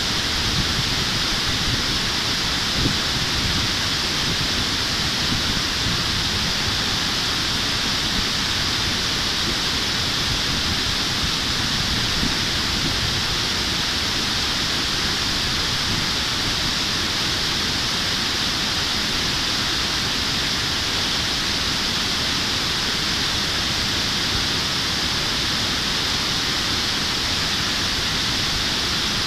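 Steady rush of river water pouring over a low concrete weir, an even roar with no breaks.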